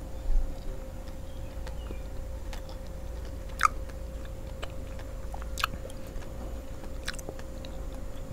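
Close-miked chewing of soft red dragon fruit flesh: scattered wet mouth clicks and smacks. There is a louder low bump just after the start, over a steady faint hum.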